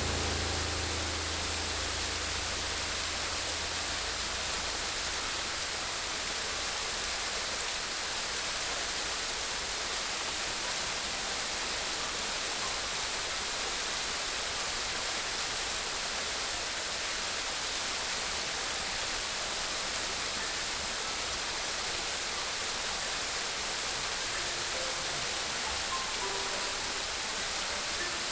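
Water rushing steadily as an even hiss with no rise and fall. A low musical tone fades out over the first few seconds.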